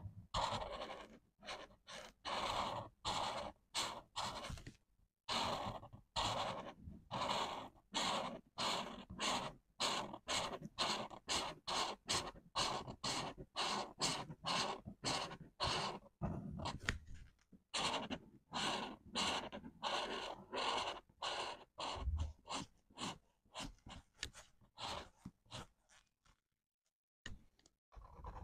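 Felt-tip marker scratching on paper in quick back-and-forth colouring strokes, about two a second, with a short pause near the end.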